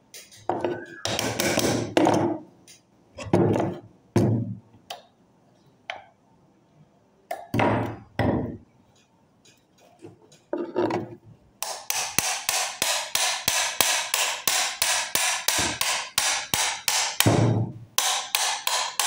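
Hammer blows on the metal of a rust-seized starter motor being knocked apart: a few separate knocks with short ringing, then about two-thirds in a fast, even run of strikes, about three a second.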